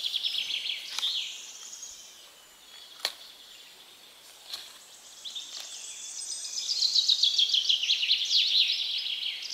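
Songbirds singing in rapid high trills, loudest over the last few seconds, with a few sharp clicks as a plastic bucket's wire handle is hooked onto a hand-held scale and lifted.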